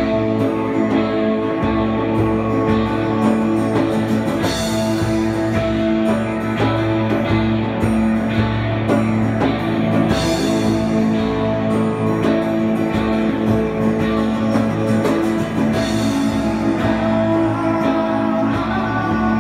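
A live rock band playing a slow song: electric and acoustic guitars holding sustained notes over drums, with a cymbal crash about every six seconds.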